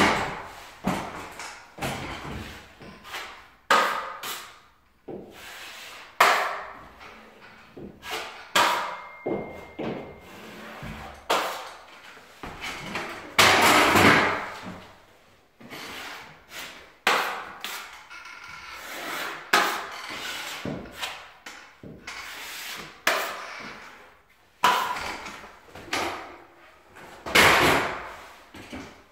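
Irregular knocks, clatters and scrapes, one every second or two: a stepladder being set down and drywall taping tools being handled.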